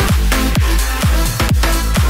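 Electronic dance music soundtrack with a steady kick drum about twice a second under layered synths.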